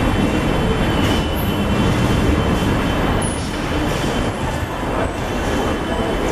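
Paris Métro train running in the station, a steady low noise with brief high-pitched wheel squeals about a second and a half and three seconds in.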